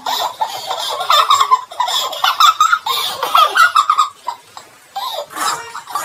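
Two boys laughing hard in high-pitched, choppy fits that break off and restart, with a short lull about four and a half seconds in.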